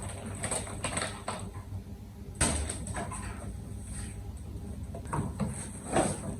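Items being handled: a few scattered short rustles and light knocks, the sharpest about two and a half seconds in and another near the end.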